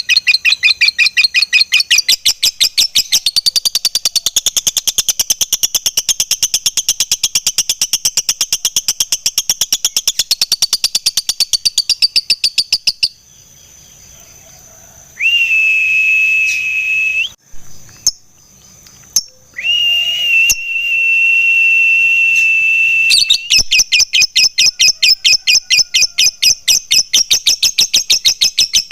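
Lovebird giving its long chattering 'ngekek' call: a fast, even train of sharp, shrill notes for about thirteen seconds. It breaks off for a pause with two long, steady whistle-like tones, then the chatter starts again near the end.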